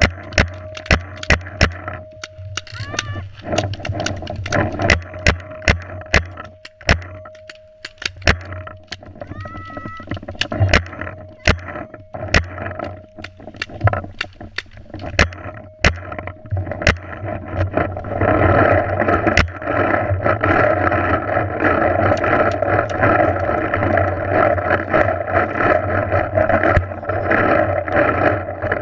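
Paintball markers firing: a fast, irregular run of sharp pops that thins out a little past halfway, after which a steady rushing noise takes over.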